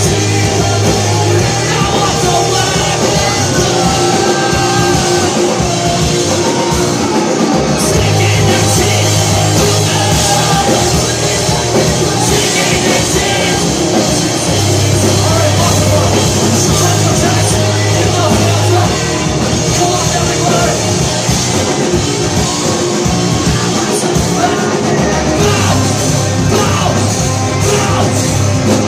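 A rock band playing live at full volume, with a singer, in a concert recording.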